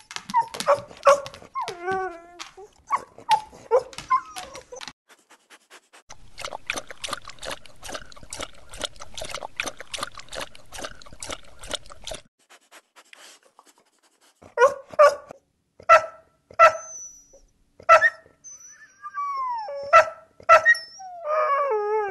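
A dog whining and yelping, then a fast run of short clicking noises, then a string of about five evenly spaced barks. Falling whines and a few more barks and whimpers follow near the end.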